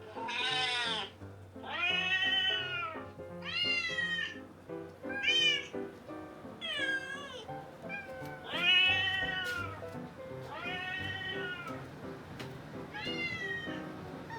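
A kitten meowing over and over from a smartphone app's recording. There are about eight high-pitched meows, each rising and then falling in pitch, roughly one every second or so. Soft background music plays underneath.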